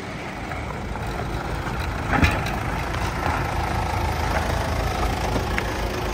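A four-wheel-drive's engine idling, a steady low rumble, with one short knock about two seconds in.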